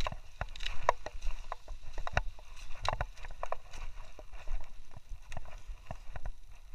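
Mountain bike rattling over a rocky dirt trail: irregular clicks and knocks from the tyres and frame hitting stones, over a low rumble of wind on the microphone.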